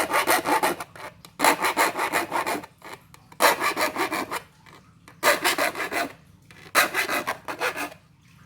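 Hand file rasping across the steel teeth of a wood-cutting handsaw to sharpen them. It comes in five bursts of about a second each, with short pauses between.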